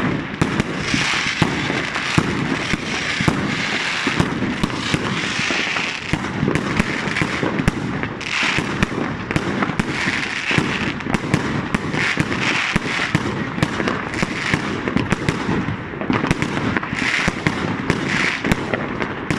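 Multi-shot fireworks battery (salute cake) firing continuously: a dense, unbroken run of bangs and crackling bursts.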